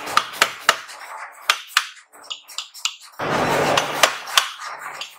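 Hammer blows on a red-hot steel axe head on an anvil: a fast, uneven series of sharp metallic strikes, some with a short ring, as the head is shaped. A brief rushing noise comes in just after three seconds.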